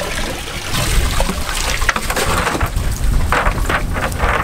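Seawater pouring and splashing off a cast net as it is hauled out of the sea over the side of a boat, with a steady low wind rumble on the microphone.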